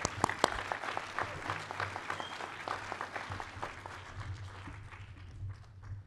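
Audience applauding, a dense patter of clapping that is strongest in the first couple of seconds and thins out toward the end.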